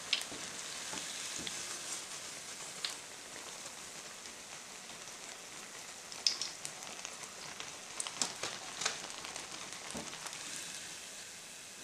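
Hot deep-frying oil sizzling steadily, with scattered small pops and clicks, slowly growing fainter.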